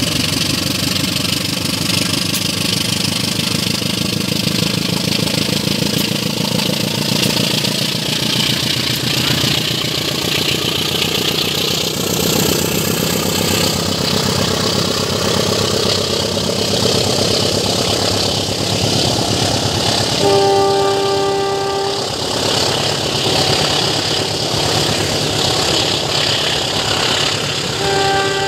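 KAI CC 201 diesel-electric locomotive pulling a passenger train away from the station under power, its engine working hard as the coaches roll by. The locomotive's horn sounds a chord for about a second and a half, about twenty seconds in, and again near the end.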